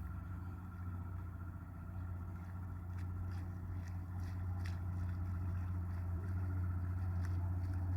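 Boat motor running steadily with a low hum, getting slightly louder toward the end, with a few faint clicks about halfway through.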